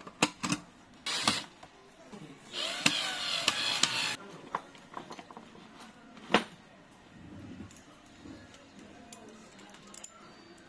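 Metal door-lock parts being handled and fitted: a few sharp clicks, a scraping rattle of about a second and a half, then a single sharp knock and a few faint ticks.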